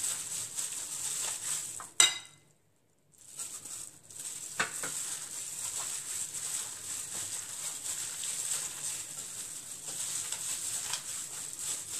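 Gloved hand squishing and stirring a wet grated-radish, pork, egg and flour mixture in a ceramic bowl, with the plastic glove rustling and small irregular clicks against the bowl. About two seconds in a sharp click is followed by a second of silence before the mixing sound resumes.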